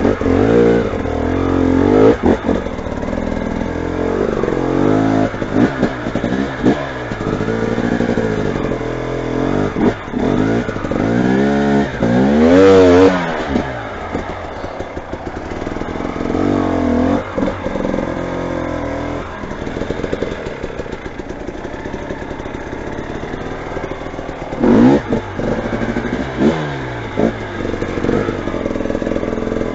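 Motorcycle engine revving, its pitch rising and falling over and over, loudest about twelve seconds in and again near the end.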